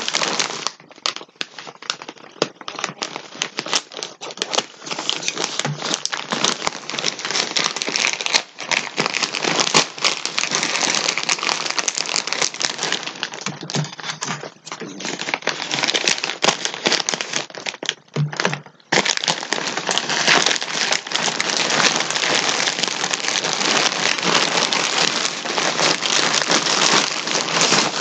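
Plastic packaging crinkling and crackling as it is handled and opened, nearly without a break apart from a few short pauses.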